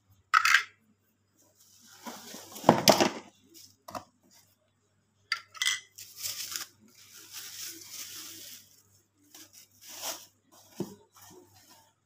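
Unpacking noise: plastic wrapping and cardboard rustling and crinkling, with short knocks and clicks of hard plastic vacuum-cleaner attachments being handled and set down.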